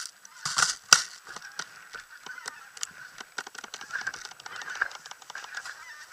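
Footsteps rustling and crunching through dry fallen leaves as a player moves through the wood, with three sharp snaps in the first second.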